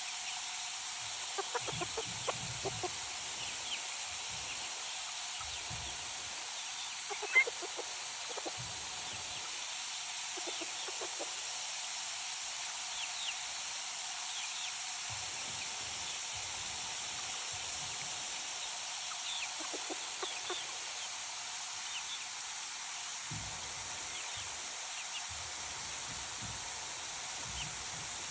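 Free-range chickens clucking in short, scattered calls over a steady background hiss, with one sharper, louder call about seven seconds in.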